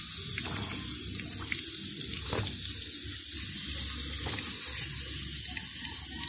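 Jet of water from a hose spraying onto a car battery's plastic case and the wet concrete, a steady hissing splash that eases off near the end, rinsing spilled acid off the battery.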